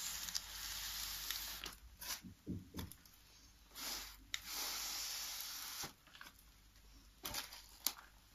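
Crepe-paper fringes of a piñata rustling as it is handled and turned: two longer stretches of hissing rustle, at the start and in the middle, with short crackles between them and near the end.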